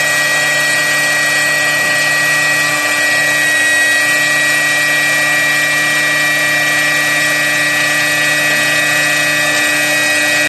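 CNC door-processing router spindle running steadily with a high whine, its end-mill bit cutting a slot along the edge of a laminated door board with a continuous rushing cutting noise.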